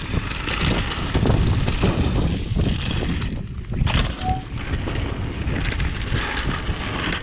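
Wind buffeting the microphone over the rumble and rattle of a mountain bike riding down a rough dirt trail, with a sharp knock about four seconds in and a short squeak just after it.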